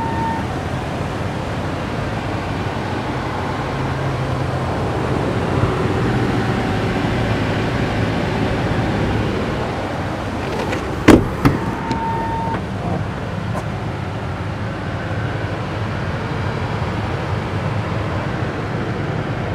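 Steady vehicle and traffic noise with two sharp knocks about eleven seconds in, followed by a short beep.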